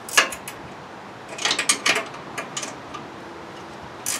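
Scattered metal clinks and clanks from the rusty steel snow-plow mounting frame being handled and fitted to a garden tractor: a sharp one just after the start, a quick cluster about a second and a half in, and more near the end.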